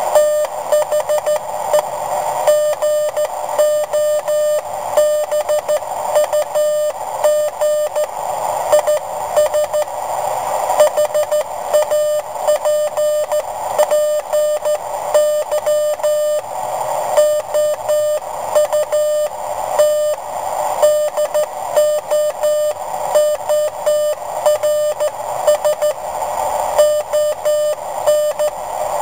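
Morse code sent on a WB9LPU GoBug semiautomatic 'bug' key, heard as a steady mid-pitched sidetone beep keyed on and off in dits and dahs.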